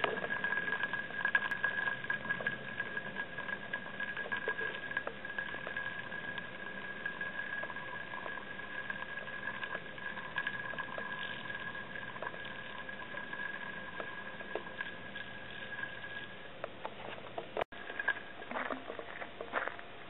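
Cheap plastic spinning top spinning on gravel: a steady high whir with many small scattered ticks, fading out about sixteen seconds in as the top runs down. A few loose clicks follow near the end.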